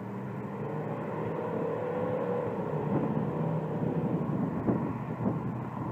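Distant engine of a V8-swapped Chevrolet Corvair running down the street a couple of blocks off, a low engine note that grows gradually louder as the car comes closer.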